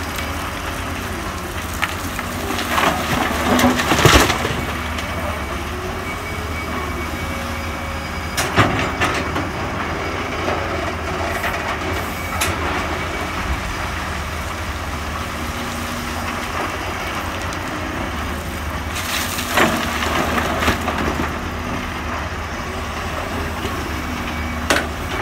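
Komatsu PC200 hydraulic excavator's diesel engine running steadily while its bucket digs into a pile of broken quarry rock, with rocks knocking and clattering against the bucket and each other several times, loudest about four seconds in.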